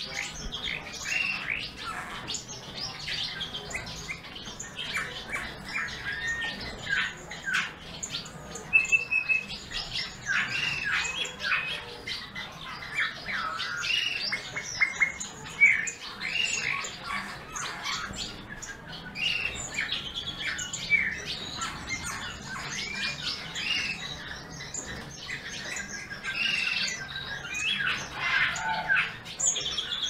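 Eurasian bullfinch singing: a steady run of short chirps and whistled notes.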